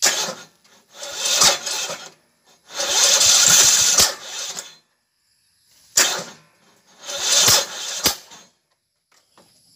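Lawn mower engine being cranked in five short bursts of half a second to two seconds each, without starting.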